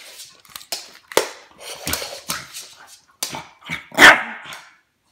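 Puppy barking in a quick run of short, sharp barks, the loudest about four seconds in.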